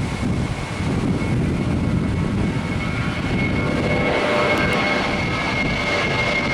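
Airliner engines running, a steady rumble with a high whine that grows a little louder and gains more tones about four seconds in, the whine dropping slightly in pitch near the end.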